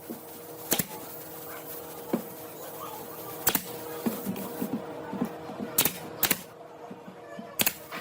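Sharp knocks or taps, about five, irregularly spaced, over a steady hum.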